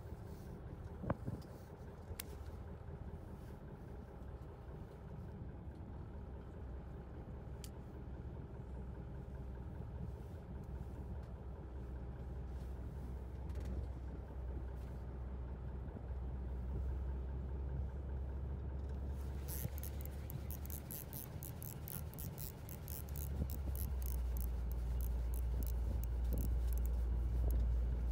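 A boat's engine running steadily with a low hum that grows louder about two-thirds of the way through. A fast, high ticking joins in past the middle.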